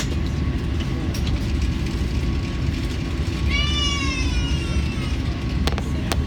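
Steady low rumble inside the cabin of a British Airways Airbus A380. About halfway through, a high wailing cry lasting about a second and a half, falling slightly in pitch, rises above it, and a few light clicks follow near the end.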